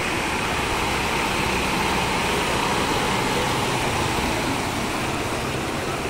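Ashok Leyland tipper truck driving past through floodwater: its diesel engine runs under the rush and splash of water thrown up by its wheels. The sound swells slightly as the truck goes by.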